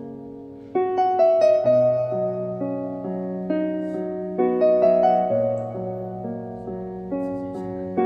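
Background piano music: slow chords with a melody above, a louder chord struck about every three and a half seconds.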